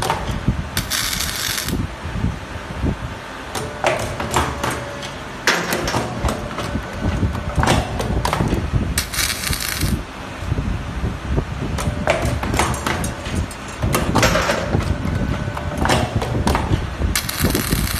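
Automatic steel wire bending and welding machine running through its cycle: repeated clanks and knocks of the forming tools over a steady machine rumble, with a short hiss about every eight seconds, near the start, about nine seconds in and near the end.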